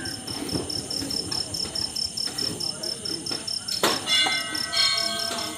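A cricket chirps in rapid, even pulses. About four seconds in, a metal temple bell is struck with a sharp clang and rings on for over a second, with a second ring close after.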